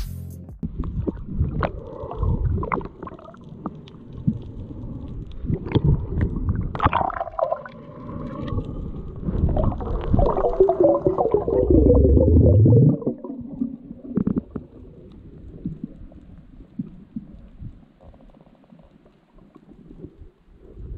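Muffled underwater sound from a camera in its waterproof housing: irregular gurgling and low rumbling from moving water and bubbles, with scattered knocks. It swells loudest in the middle, then settles to a fainter rumble near the end.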